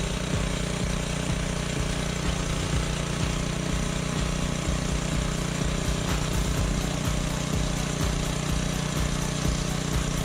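Small gasoline engine of a portable bandsaw sawmill running steadily at a constant speed. A faint, rapid ticking of about three or four a second joins in about six seconds in.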